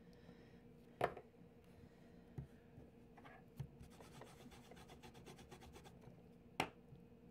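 Handling noise on a tabletop: two sharp knocks, about a second in and near the end, with a few lighter taps and a brief fine rustle between them, over a faint steady hum.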